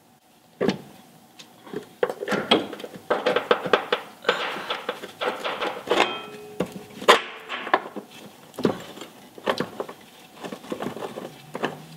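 Metal clinks, knocks and scraping from a steel bolt greased with anti-seize being worked through a leaf spring eye bushing and shackle, and a nut started on it by hand. A brief steady tone sounds just after six seconds in.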